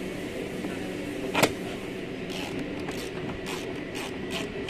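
Plastic car door trim being worked with a thin metal tool and pressed by hand: one sharp click about a second and a half in, then a run of lighter clicks and scrapes.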